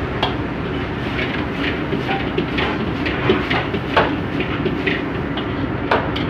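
Steady rush of a high-flame gas wok burner while a metal ladle scrapes and clanks against the steel wok as noodles are stir-fried and tossed, with a handful of sharp clanks spread through.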